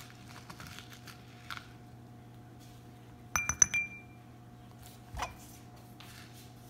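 Foil-wrapped chocolate balls dropped into a small glass bowl: a quick cluster of clinks with a brief glassy ring, about three and a half seconds in. A single duller knock follows a second and a half later.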